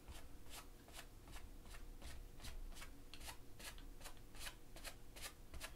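Faint, quick strokes of a 1-inch paint brush dragged up a stretched canvas, about three or four strokes a second, as oil-paint trees are pulled up.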